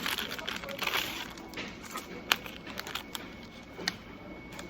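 Scattered small clicks and rustling from things being handled, with a sharper click about two seconds in and another near four seconds.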